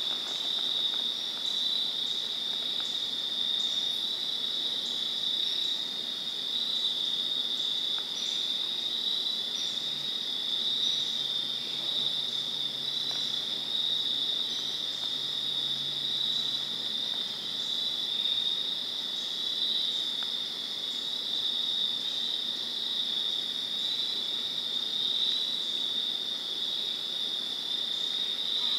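Evening chorus of crickets and other insects trilling steadily in a high, even pitch, with a fainter, higher chirp repeating regularly over it.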